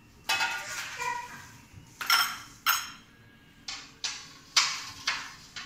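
Dishes and cutlery knocking and clinking on a kitchen counter: about eight sharp strikes, each ringing briefly, spread unevenly.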